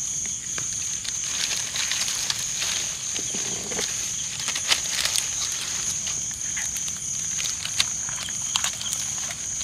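A steady high-pitched night insect chorus, crickets, with irregular sharp crackles and snaps from a small fire of dry sticks and palm fronds as it catches; the loudest snaps come about halfway through and near eight seconds in.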